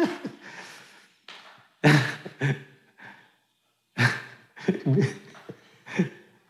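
Breathy laughter in short bursts: one about two seconds in, then several more from about four seconds, with a brief silent pause between.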